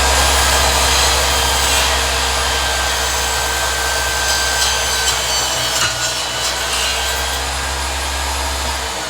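Loud, steady grinding machinery noise over a constant low hum, cutting off suddenly at the end.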